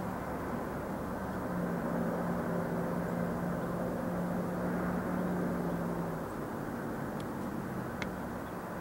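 A steady low engine-like drone over outdoor background noise, easing off about six seconds in, with a couple of faint high ticks near the end.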